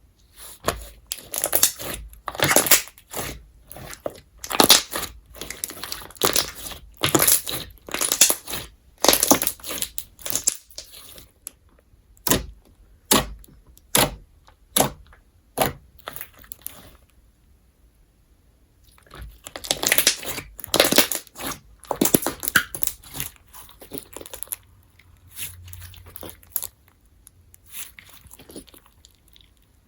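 Crunch slime made of glossy glue slime with foam beads mixed in, squeezed and pressed so the beads give dense crackly crunching. It comes in runs of crackles with sparser single pops between and a short pause past the middle.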